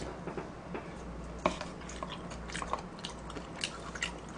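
A person taking a chopstick bite of mulhoe, the spicy cold raw-fish soup, and chewing it close to the microphone. There are scattered wet smacks and clicks, with one sharp click about a second and a half in, over a steady low hum.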